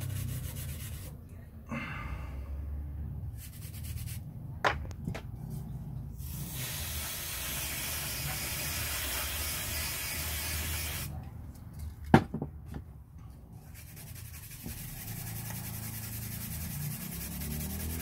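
Aerosol brake cleaner sprayed and a toothbrush scrubbing a circuit board to wash off solder flux: a steady hiss for about five seconds in the middle, with scrubbing and a few sharp knocks, the loudest about twelve seconds in.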